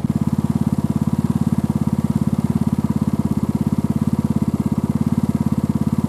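Engine idling steadily, with a fast, even pulse.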